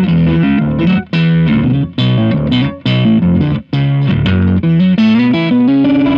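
Electric guitar, a Fender Stratocaster on the neck pickup, played through a compressor, an RC Booster pushed into overdrive and a Meris Enzo synth pedal giving a gritty sub-octave tone. It plays a fast riff of quickly changing notes with short stops about once a second.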